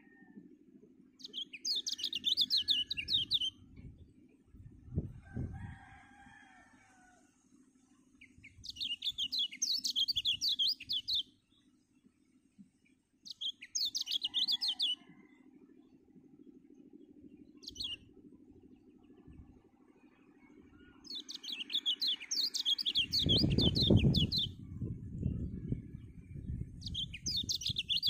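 Kecial, a small white-eye, singing in six bursts of rapid, high twittering, each a second or more long with pauses between, one of them very short. A low rumble comes up near the end and is the loudest thing here.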